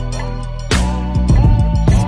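Instrumental dance-pop music with a steady bass line, drum beat and stacked synth chords, without singing.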